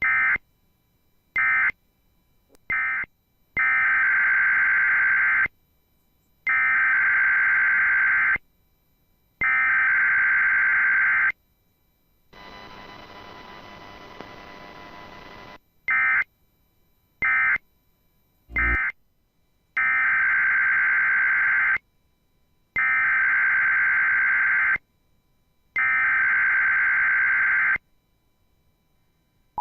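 Emergency Alert System SAME digital data bursts, a harsh buzzing warble. First come three short bursts, the end-of-message code closing the test. Then come three header bursts of about two seconds each, a few seconds of faint hiss, and the whole pattern of three short and three long bursts repeats.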